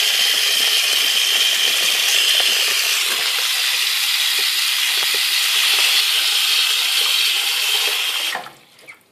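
Bathroom faucet running into a sink, the stream splashing over a plastic rifle magazine held in it. The steady water noise cuts off suddenly near the end.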